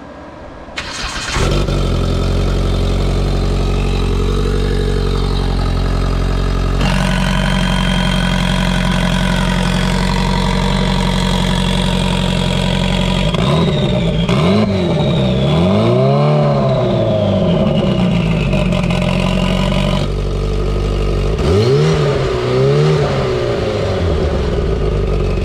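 Polaris RZR Pro R's turbocharged four-cylinder engine, fitted with the Ibexx turbo kit, starting about a second in and settling to an idle. It is then blipped up and down several times about halfway through and twice more near the end.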